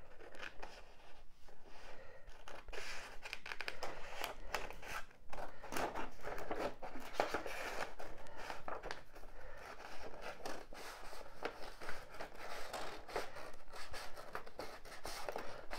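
Scissors cutting through a sheet of drawing paper along a curve: a continuous run of short, crisp snips.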